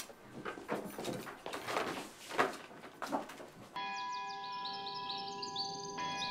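Classroom handling noise: shuffling and a few knocks as things are moved about. About four seconds in, it gives way to background music, a held chord of steady tones with short high chirping notes above it.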